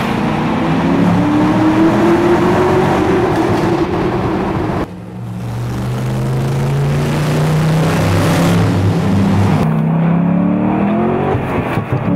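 Chevrolet Corvette V8 engine accelerating, its pitch climbing steadily. The sound changes abruptly about five seconds in, and a second run of climbing revs follows, rising more steeply near the end.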